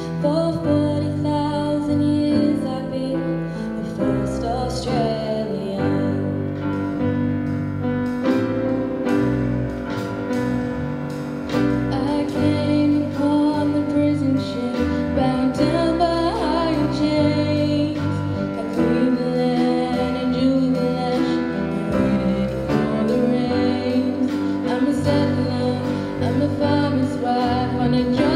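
Female voices singing a slow song into a microphone with instrumental accompaniment, sustained notes held over a steady bass.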